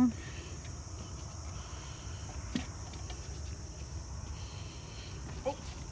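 A steady, high shrill of insects chorusing in the marsh, with a single light knock about halfway through.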